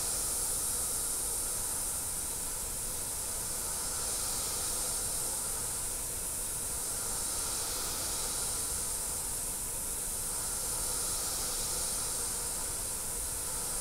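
Gravity-feed airbrush spraying paint: a steady, unbroken hiss of compressed air.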